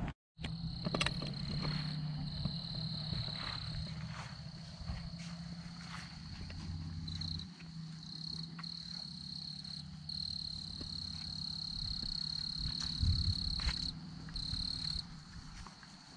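Insects trilling in a steady high-pitched chorus that breaks off briefly now and then, over a low steady hum, with a few faint knocks.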